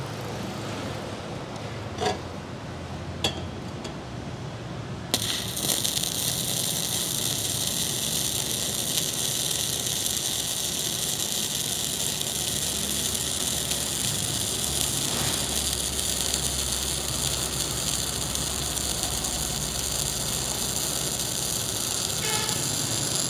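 Mini MIG welder's arc crackling and hissing steadily as it lays a bead on thin steel box section. It starts suddenly about five seconds in, after a few light clicks, and the thin steel does not burn through.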